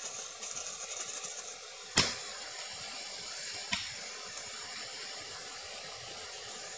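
Steady airy hiss of a hot-air rework station blowing over the board, with one sharp click about two seconds in and a fainter click nearly two seconds later.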